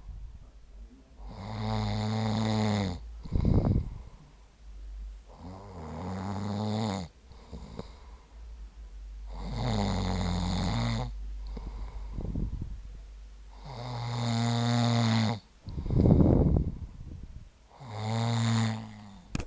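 A man snoring in his sleep: five long snores about four seconds apart, with a short, loud breath out after two of them.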